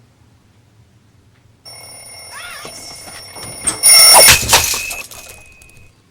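Alarm clock ringing with a steady, high bell-like tone that starts about a second and a half in. A loud clatter about four seconds in is followed by a fading ring.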